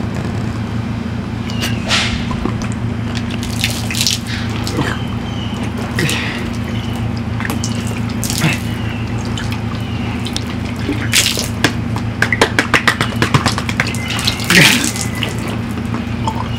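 Water gushing and splashing from a plastic water bottle as it is chugged and spilled over a face and shirt. The splashes come thickest and loudest near the end, over a steady low hum.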